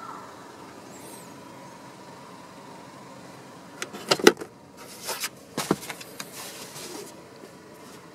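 Handling noise inside a car: a quick cluster of sharp clicks and knocks about four seconds in, a brief rustle, and another sharp knock about a second later, as things in the cabin are handled.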